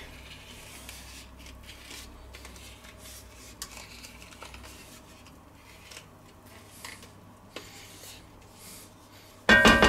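Wooden spatula scraping clarified butter out of a plastic tub, soft scrapes with a few small clicks and knocks. Just before the end, loud music starts suddenly.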